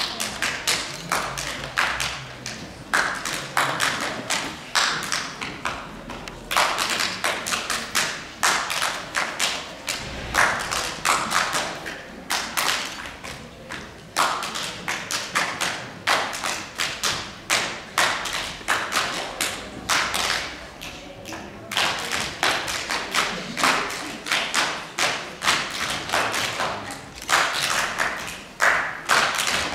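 A group performing body percussion together: rhythmic hand claps mixed with thumping slaps, in repeating phrases with short breaks.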